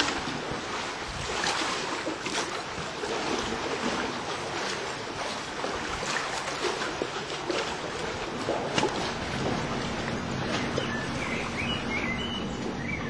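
Wind on the microphone and small lake waves lapping, a steady rushing noise with little splashes. Small birds chirp a few times near the end, over a low steady hum.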